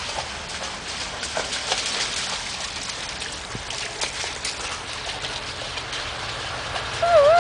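Shallow water trickling out of a corrugated metal culvert pipe, with splashing as a dog wades through it and out of the pipe. Near the end a loud tone starts, dipping in pitch and then holding steady.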